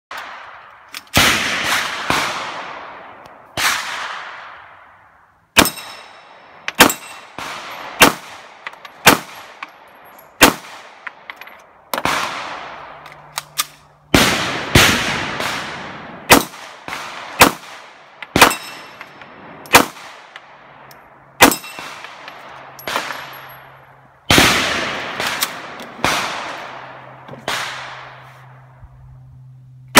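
Single gunshots fired at an uneven pace, about one a second, some in quick pairs, each followed by a long fading echo. Some shots carry a faint high ring of bullets striking steel plate targets.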